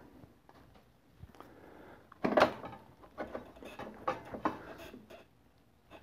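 Metal clinks and knocks as a Kawasaki KLR650's front axle is worked out of the hub and the front wheel comes free of the forks: one sharp knock about two seconds in, then a run of lighter knocks and clicks.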